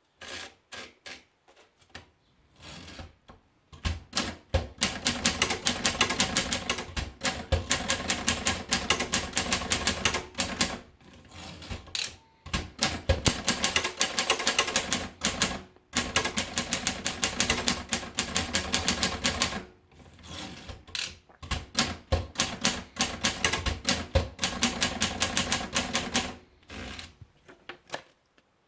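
Everest Model 90 manual typewriter being typed on: fast runs of keystrokes clacking several times a second, broken by a few short pauses.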